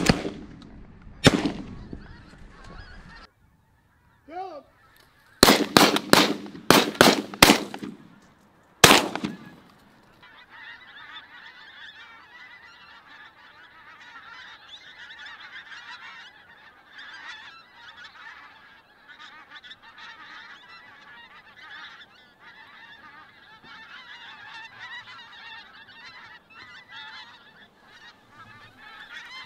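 Shotgun shots from several hunters: one about a second in, a quick run of about six a few seconds later, and another near nine seconds. From about ten seconds on, a large flock of pink-footed geese calls continuously in a dense overlapping chatter of honks.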